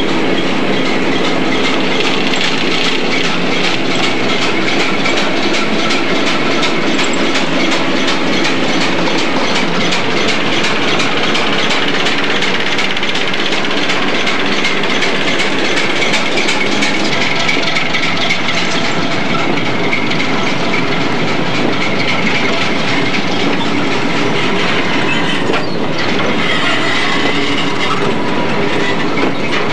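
Class 08 diesel shunter with its English Electric six-cylinder engine passing close while hauling a rake of hopper wagons. First comes the engine running with rapid ticking beats as the locomotive goes by, then the wagons' wheels clattering over the rail joints. High thin wheel squeal creeps in near the end.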